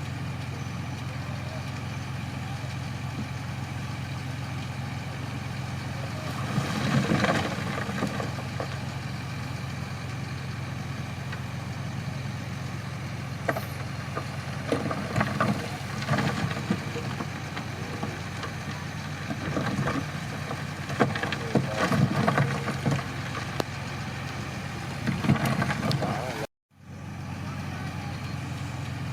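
Crawler bulldozer's diesel engine running steadily, with several louder, irregular bursts of working noise over it. The sound cuts out for a moment near the end.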